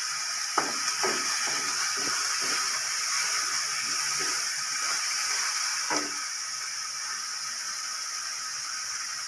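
Chopped onions sizzling in oil in an aluminium kadai, a steady hiss, with a wooden spatula scraping and tapping the pan a few times, the last about six seconds in.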